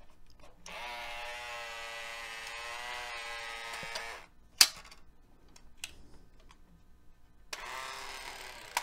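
Small battery-powered motor in a Minolta VHS-C cassette adapter whirring with a steady whine as it winds the tape into the cassette shell. A sharp click comes about halfway through, then the motor whirs again near the end.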